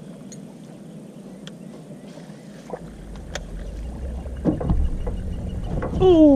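Small scattered clicks and knocks of fishing gear in a jon boat, with a low rumble setting in partway through. Near the end comes a short, loud sound falling in pitch, like a voice or call.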